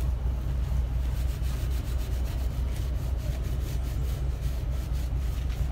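Fine 2000-grit sandpaper rubbed by hand over a rusty metal boat fitting in repeated back-and-forth strokes, sanding off the rust. A steady low hum runs underneath.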